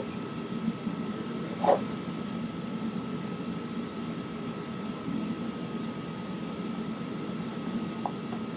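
Steady mechanical hum with a thin, steady high whine over it. A single sharp click or clack comes just under two seconds in, and a fainter one near the end.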